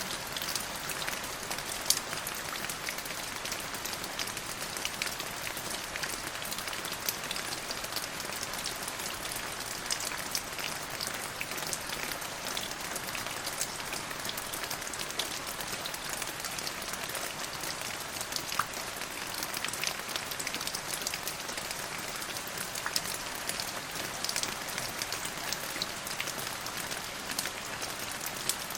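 Steady rain, with many separate drops tapping over an even hiss.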